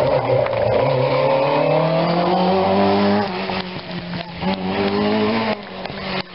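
Rally car engine accelerating hard through the course. The pitch climbs, drops at an upshift about three seconds in, climbs again, then falls as the driver lifts off near the end.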